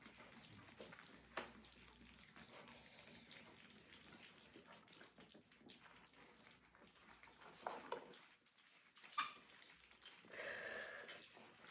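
French bulldog puppies lapping and smacking at soft food, a quiet run of small wet clicks and slurps. A puppy gives a short whine about ten seconds in.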